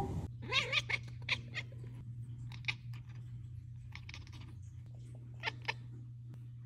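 Sphynx cat chattering: several short runs of quick, clicky chirps, over a low steady hum.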